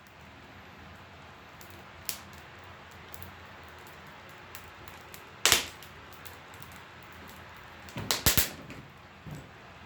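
Wood fire crackling in a wood stove: a few sharp pops over a steady low hiss, the loudest about five and a half seconds in and a quick run of pops around eight seconds.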